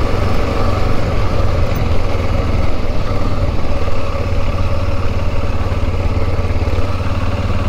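Adventure motorcycle's engine running at a steady pace while riding a dirt two-track, with a steady rush of wind and road noise over it.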